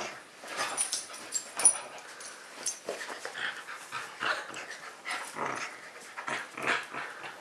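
Husky puppy making short whimpering and panting noises in irregular bursts while it clings to and mouths at a person's leg.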